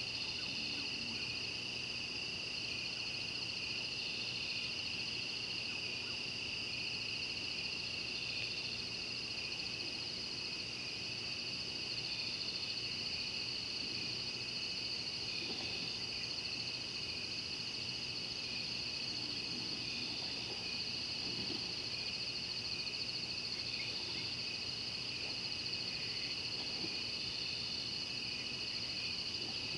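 Night chorus of insects, crickets trilling steadily at two high pitches, with another high call that keeps switching on and off.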